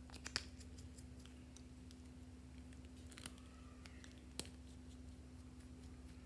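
A few sharp plastic clicks as small cosmetic tubes and their caps are handled and knock together, the loudest near the start and two more about three and four seconds in, over a steady low hum.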